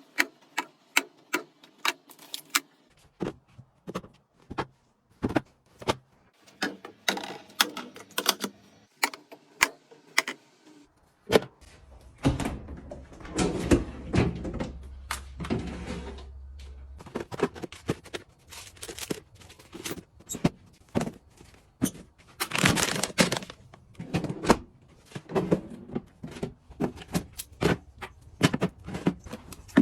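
Groceries being handled and put away: a long string of sharp taps and knocks as packages and containers are set down, with stretches of rustling packaging in between.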